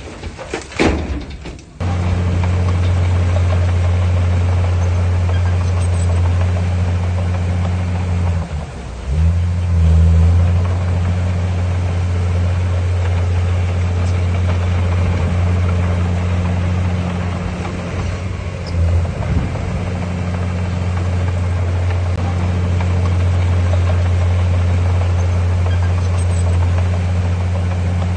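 Diesel engine of a piece of heavy earthmoving equipment running steadily at a constant low pitch. It breaks briefly about two seconds in, again about nine seconds in, and at the very end.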